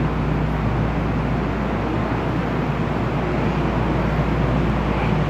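Steady hum and hiss around a Shonan Monorail suspended train standing at an elevated station platform, even and unchanging throughout.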